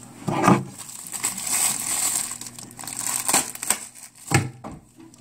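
Plastic mailer bag crinkling as it is handled and slit open with a small knife, with a few sharp knocks, the loudest near the start and about four seconds in.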